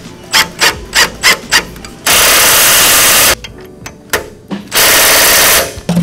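Bolts of a minibike foot peg bar being driven in with a socket on an extension: a quick run of clicks, then two loud bursts of a power tool spinning the socket, the second shorter than the first.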